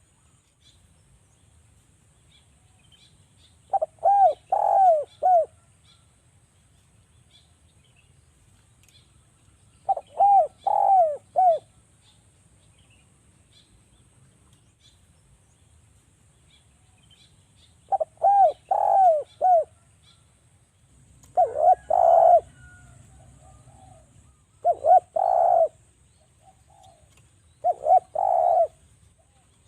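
Spotted dove (derkuku) cooing in short phrases of three or four notes, with long pauses at first and then more frequent phrases in the last third. Faint high chirps from small birds sound between the phrases.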